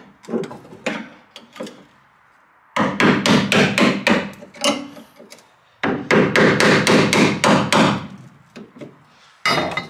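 Hammer driving a chisel into the car's sheet steel, struck in two quick runs of about five blows a second, each lasting about two seconds, with a few single knocks before and after. The chisel is cutting metal away to lighten the car.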